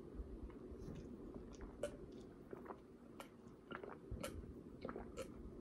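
A man drinking water in gulps from a bottle: faint swallowing and wet mouth clicks, irregular and scattered throughout.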